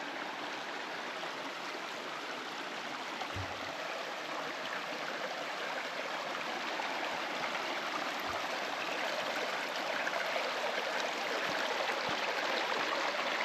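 River rushing over rocks, a steady wash of water that grows a little louder in the second half. A couple of dull thumps sound over it, about three and eight seconds in.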